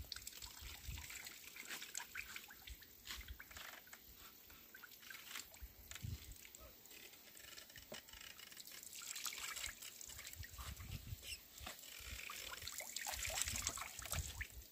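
Faint trickling and dripping of oil squeezed from a cloth bundle under a wooden lever press, with scattered small clicks.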